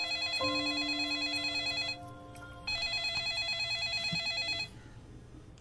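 Smartphone ringing with an incoming call: a trilling, old-style telephone-bell ringtone, two rings of about two seconds each with a short gap between them.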